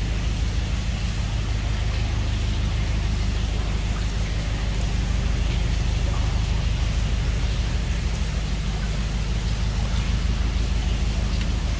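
Narrowboat's diesel engine running steadily at cruising speed, a constant low rumble, heard inside a brick-lined canal tunnel.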